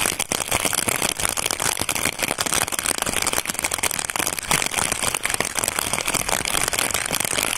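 Rain drops pattering on a plastic bag wrapped over a phone's microphone, with the plastic crinkling: a dense, irregular stream of small clicks.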